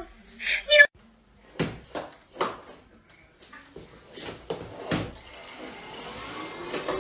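A string of sharp knocks and thumps, then a cordless stick vacuum's motor starting up near the end, a hum that rises slightly and then holds steady.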